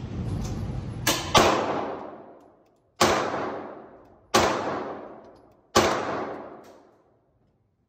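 Five pistol shots echoing in an indoor range. The first two come close together, then one about every second and a half, each dying away over about a second. A steady low background rumble drops out after the first shots.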